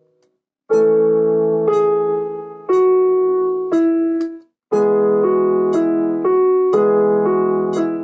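Solo piano playing slow sustained chords. After a brief silence it strikes a chord about once a second, stops abruptly just past the middle, then resumes with chords changing about twice a second.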